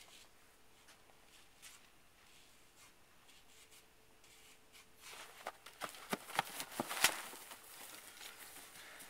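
Footsteps and rustling on a grass lawn as people creep and crawl across it: faint scuffs at first, then from about five seconds in a run of irregular scuffs and soft knocks, the loudest near seven seconds.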